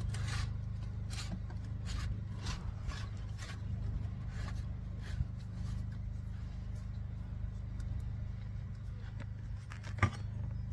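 Plastic oil filter housing cap being screwed in by hand: faint light clicks and rubs of the threads, about two or three a second at first, then sparser, with a sharper click near the end. A steady low hum runs underneath.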